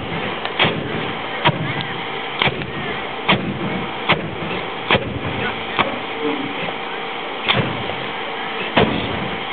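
Pyranoscope fire cannons firing: a sharp bang roughly every second, about nine in all with a longer pause past the middle, over a steady noise with faint held tones.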